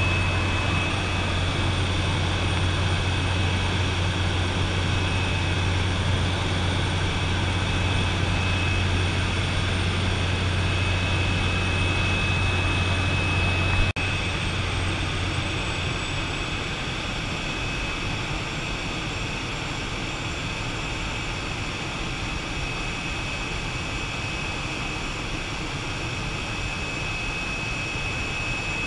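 Cabin noise of a de Havilland DHC-3 Otter turboprop in flight, heard from inside: the engine and propeller make a steady drone with a high whine. About halfway through there is a brief click, and the drone drops a little in level.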